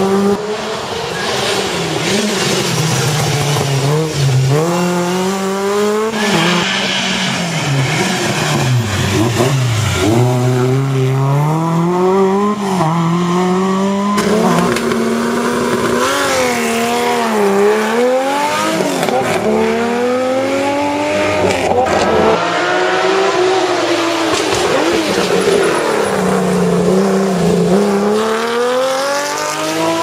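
Historic rally cars on a stage at full throttle, one after another, their engine pitch climbing and falling again and again as they shift gear and lift off.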